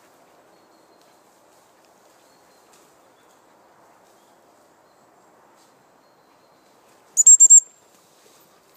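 Gundog training whistle blown about seven seconds in: a quick run of about four shrill pips on one steady pitch, loud and sharp, over a faint low background hush.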